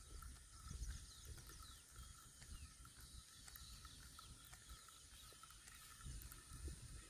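Near silence: faint outdoor ambience with a steady high-pitched insect drone and a few short chirps, over a low rumble.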